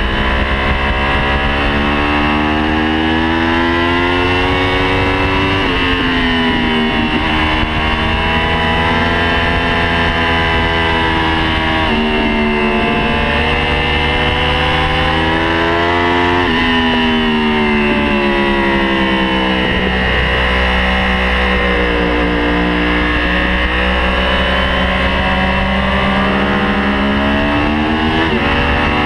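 Onboard sound of a sport motorcycle's inline-four engine under way at speed, with wind rushing past. The engine note sweeps up and down as the throttle opens and closes, dropping sharply several times.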